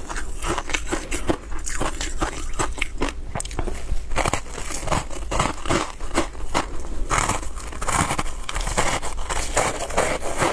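Close-miked biting and chewing of a block of shaved ice coated in milk powder: many quick crunches and crackles as the ice breaks between the teeth, thickening from about four seconds in.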